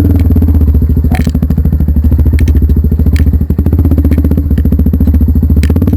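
Motorcycle engine idling close by, a steady fast low putter, with a few light clicks and knocks over it.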